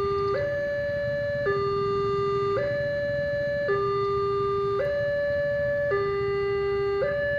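Railway level-crossing warning alarm sounding a two-tone electronic signal, switching between a higher and a lower tone about once a second, the warning that a train is approaching. A low rumble runs underneath.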